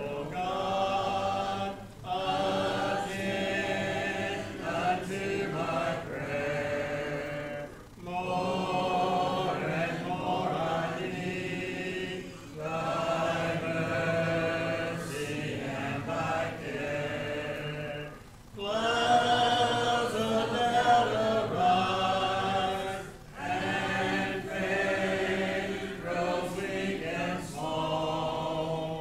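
A congregation singing a hymn a cappella, many voices together without instruments, led by a man holding a hymnal. The singing goes in phrases of a few seconds each, with short pauses for breath between them.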